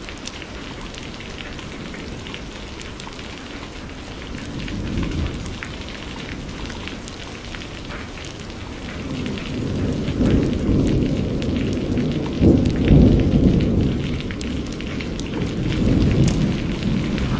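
Steady rain with close drops ticking. A low rumble of thunder swells briefly about a third of the way in, then builds again past halfway and is loudest near three-quarters through.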